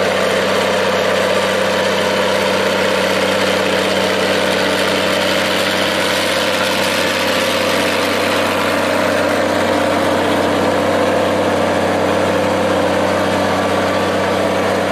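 Minneapolis-Moline tractor engine idling steadily, with an even low hum and no change in speed.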